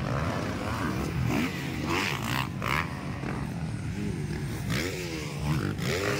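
Several motocross dirt bikes racing, their engines revving up and falling back again and again as they overlap, over a steady low engine drone.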